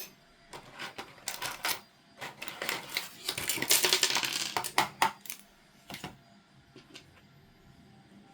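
Small plastic toy pieces being handled: a run of sharp clicks and taps, with a longer rustle about three to five seconds in.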